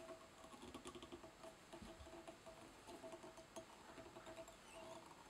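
Faint handling sounds of cactus chenille being wound onto a fly hook in a tying vise: soft intermittent squeaks and small ticks, near silence overall.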